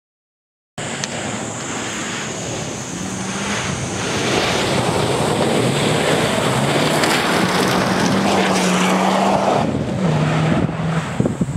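Rally car driven flat out past on a gravel special stage: engine note climbing and dropping back with each gear change over the noise of tyres on loose gravel, loudest as the car goes by and falling away as it leaves, with a few sharp knocks near the end.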